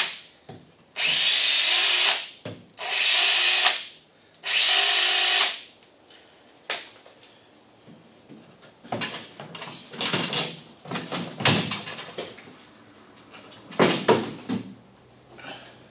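Cordless drill driving out the Torx-head bolts around a Chevy Volt battery pack's fiberglass composite cover, in three bursts of about a second each. After that come scattered knocks and clatter as the loosened cover is handled.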